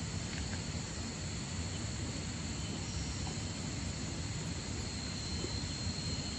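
Steady outdoor ambience: a continuous high-pitched insect drone over an even, low rushing noise, with a few faint ticks.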